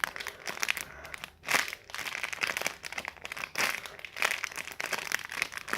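Crinkling and rustling in irregular bursts as a squishy toy is handled and turned over by hand.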